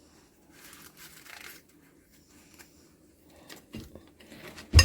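Paper cupcake liners rustling faintly as they are handled and pressed into a cupcake mold, with a few small clicks. Near the end, one sharp knock with a brief ring.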